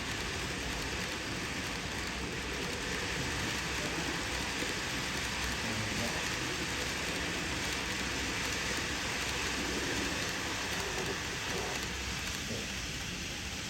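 N-gauge model freight train running on the layout track, a steady rushing hiss of small wheels and motor with no distinct clicks.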